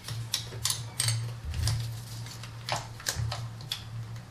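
Irregular clicks and metallic clinks of a socket ratchet and extension being fitted and worked on a 10 mm bolt in an engine bay, with a steady low hum underneath.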